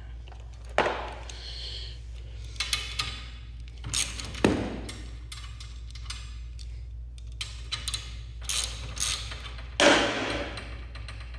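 Irregular knocks, clanks and scrapes of hands working around the garage door's torsion spring hardware, about a dozen scattered sounds with the loudest knock near the end, over a steady low hum.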